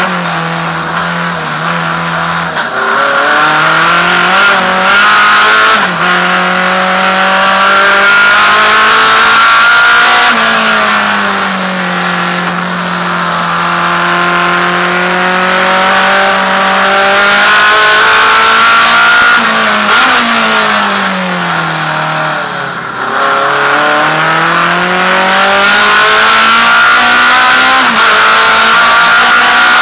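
Naturally aspirated Alfa Romeo race car engine heard from inside the cockpit, running loud under hard driving, its pitch climbing and dropping as it accelerates and shifts. About two-thirds through the pitch falls steadily as the car slows, then climbs again as it pulls away.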